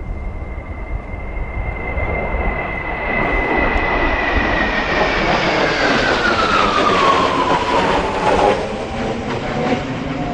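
Kawasaki T-4 jet trainer passing by: a high turbine whine that slides down in pitch as the jet noise swells, loudest about eight seconds in.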